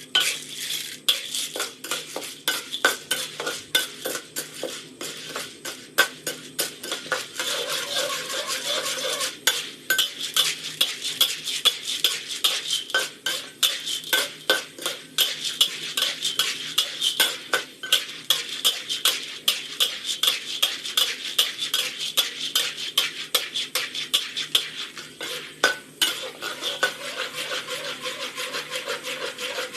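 Popcorn kernels in a cooking pan: a dense, irregular run of sharp clicks and ticks, several a second, with a light sizzle underneath.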